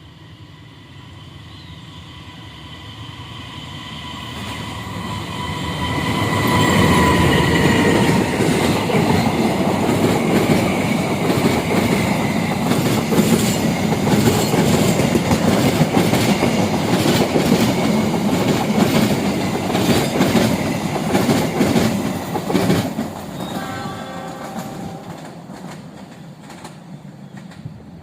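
A train sounding a long, steady horn as it approaches, then passing close by with a loud rumble and rhythmic clatter of wheels over the rail joints, fading away near the end.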